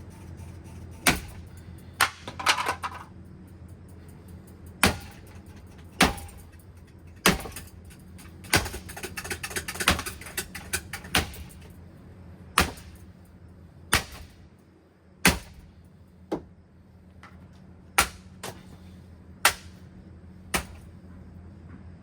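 A ceiling fan being smashed: a series of hard single blows, one every second or so, with a quick flurry of smaller knocks about nine to eleven seconds in, over a steady low hum.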